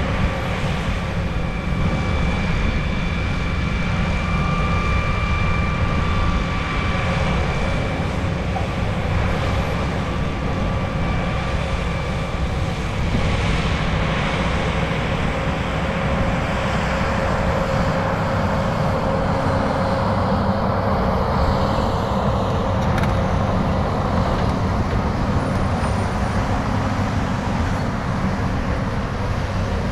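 Dump truck's diesel engine running as it raises its tipper bed and drops a load of earth, with a rushing slide of soil from about 13 to 22 seconds in. A crawler dozer's diesel engine runs alongside.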